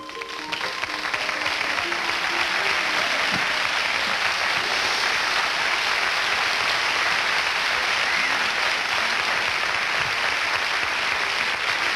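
Studio audience applauding, swelling over the first couple of seconds and then holding steady, with music playing underneath.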